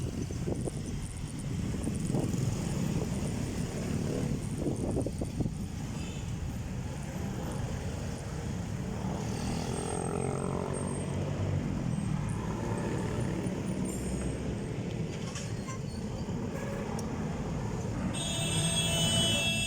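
Road traffic and wind rumble heard while riding along a road. A vehicle horn starts sounding near the end.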